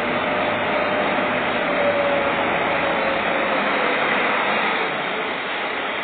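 Diesel engines running steadily: a tractor with a dozer blade close by and a loaded dump truck reversing in, with a faint tone that slowly falls in pitch over the first few seconds.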